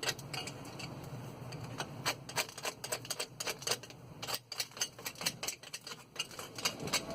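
Brush scrubbing dirt and corrosion from the inside of a car's front brake caliper: quick, irregular scratchy strokes, several a second, with a brief lull a little past the middle.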